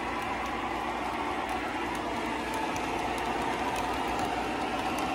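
Lionel O gauge model train running on three-rail track: a steady rolling rumble of wheels and motor hum, growing slightly louder about halfway through as the cars pass close by.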